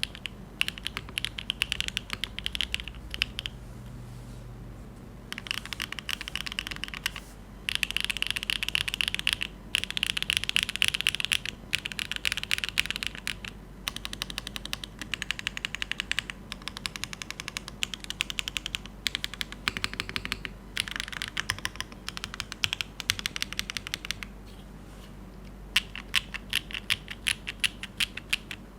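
Typing on a Neo75cu gasket-mount mechanical keyboard with HMX Blue Topaz switches, GMK keycaps, no foam and a copper bottom: fast runs of clacking keystrokes broken by brief pauses, the longest a second or so near the end.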